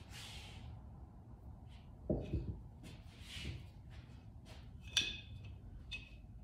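Metal parts of a motorcycle drum brake being handled and fitted in a vise: scattered knocks and rubbing, a couple of dull thuds a little after two seconds, and a sharp clink with a short metallic ring about five seconds in.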